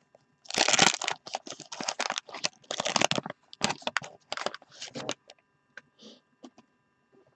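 Wax-paper trading-card pack being torn open and crinkled in the hands: a run of tearing and crackling for about five seconds, then only a few faint ticks.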